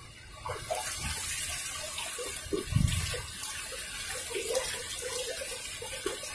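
Shallow river water splashing and running, with a dull thump about three seconds in.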